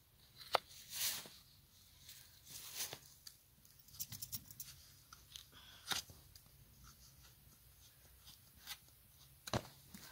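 Hoof knife paring dead, dry sole from a horse's front hoof: irregular crisp cutting and scraping strokes with sharp clicks, a couple of them louder a little past the middle and near the end.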